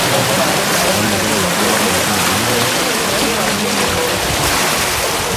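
Water rushing and churning out under a partly raised steel canal sluice gate, a steady loud torrent, with men's voices talking over it.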